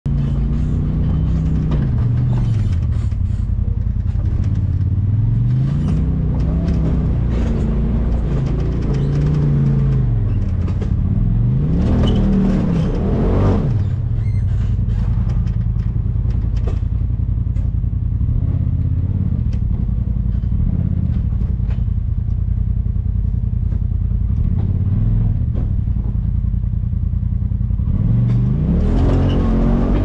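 Polaris RZR side-by-side's twin-cylinder engine running on a trail, its revs rising and falling every second or two, then steadier for a long stretch before climbing again near the end. Clattering knocks from the machine come through it.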